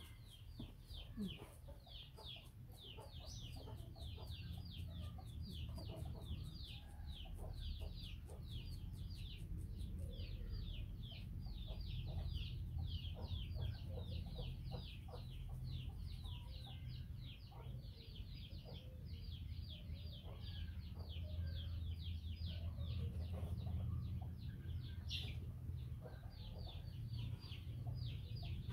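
Chicks peeping continuously: a rapid stream of short, high, falling peeps, several a second, overlapping one another.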